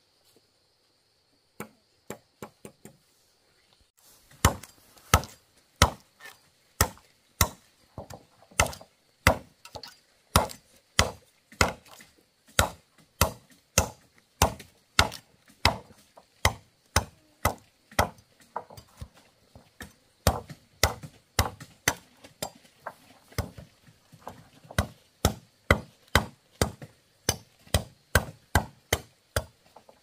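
Steady chopping with a blade, about two sharp strikes a second, starting after a few scattered taps about four seconds in.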